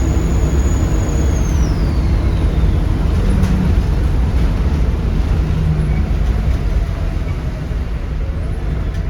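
Volvo D7C 7.3 litre diesel of a Volvo B7RLE bus running with a steady low rumble, and a high turbo whistle that falls away and fades about two seconds in as the engine comes off load.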